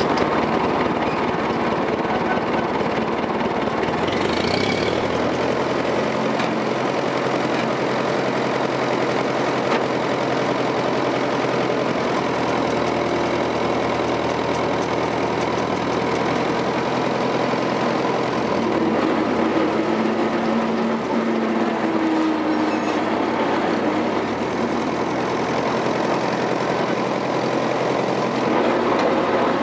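Continental Richard CD6M loader's engine running steadily, heard from the driver's seat. Its pitch shifts a few times as the machine works: about four seconds in, again a little past halfway, and near the end.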